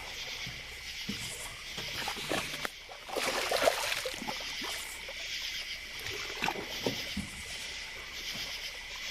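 Water sloshing and splashing against a small fishing boat, with scattered knocks and handling noises, loudest a little past three seconds in. Under it runs a steady high-pitched chirring.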